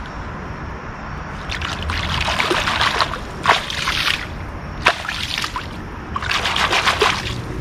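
Water sloshing and splashing beside a boat as a freshly landed muskie is held in the lake to revive it, in several bouts with a sharp splash about three and a half seconds in.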